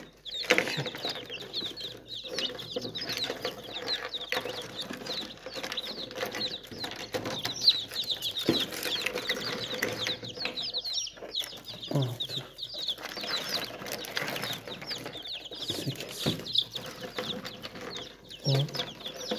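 A crowd of newly hatched chicks peeping continuously: a dense chorus of short, high cheeps, each falling in pitch. A few sharp knocks come through, the loudest about eight seconds in.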